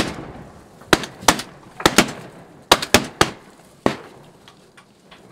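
A volley of shotgun shots from several hunters firing at ducks in flight: about eight sharp reports spread over some three seconds, a few in quick pairs.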